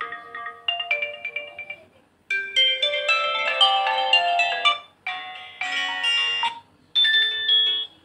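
Built-in ringtones on an Oppo F17 phone previewed one after another from its loudspeaker: four short melodic snippets, each cut off abruptly after one to three seconds when the next ringtone is tapped.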